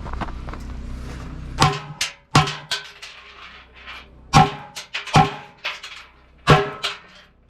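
Rapid pistol shots in quick pairs, about nine in all, starting about a second and a half in: a competitor firing at targets during an IPSC handgun stage.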